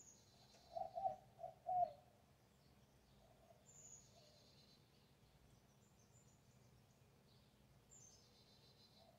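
Birds singing. A high song phrase, a descending note that runs into a trill, repeats about every four seconds. Four louder, lower calls come in quick succession about a second in.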